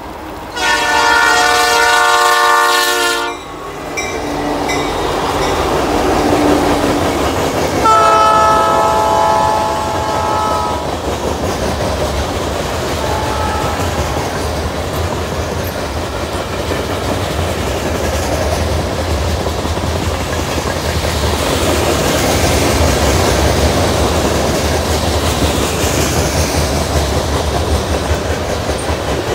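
Freight train's locomotive horn: a long blast, a second long blast a few seconds later and a short faint one. The train then rolls past with a steady rumble and the clickety-clack of wheels on the rails.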